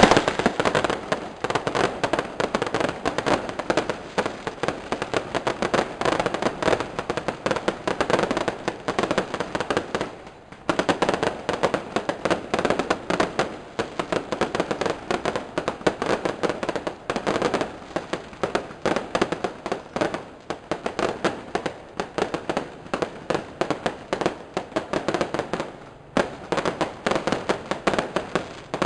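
Fireworks going off as a dense, continuous run of rapid sharp cracks and bangs, with brief lulls about ten seconds in and again near twenty-six seconds.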